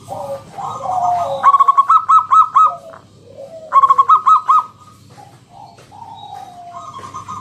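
Zebra dove singing: lower sliding coos, then a fast run of short clipped cooing notes, repeated twice, with a softer falling coo near the end.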